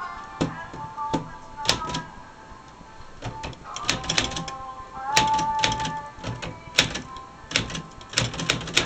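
Keys of a 1946–49 Smith-Corona Sterling manual typewriter striking the platen in irregular runs of sharp clacks, with music playing underneath.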